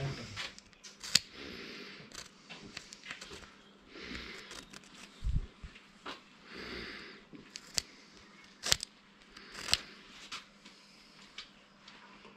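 Scattered clicks, taps and brief scraping of small metal parts being handled while a Kubota tractor starter motor is taken apart, with one dull knock about five seconds in.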